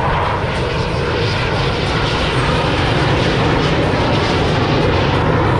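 Air Force Thunderbirds F-16 fighter jet flying a slow low pass, its jet engine making a loud, steady noise.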